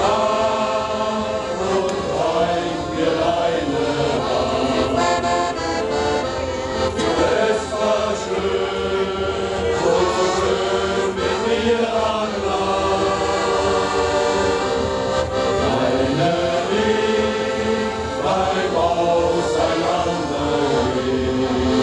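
Male shanty choir singing a sea shanty together, accompanied by accordions.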